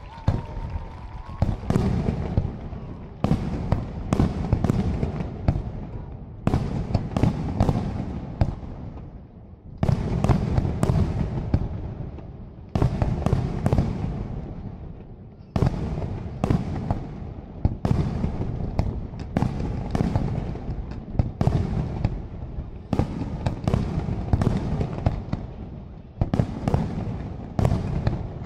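Aerial firework shells bursting one after another, sharp bangs about every second with crackling, fading tails. The firing starts after a brief lull and keeps up as a steady barrage.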